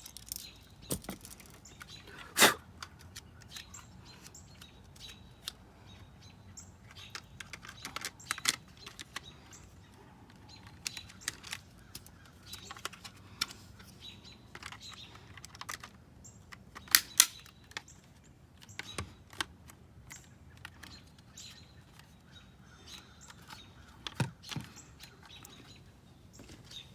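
Scattered clicks and snaps of a plastic car door switch panel being handled as a power window switch is swapped in it, with a loud snap about two and a half seconds in and two more close together around the middle.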